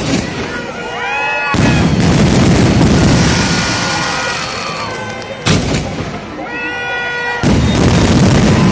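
Festival fireworks going off: a sharp bang at the start and another about five and a half seconds in, with long stretches of loud crackling and bursting from about a second and a half in and again near the end.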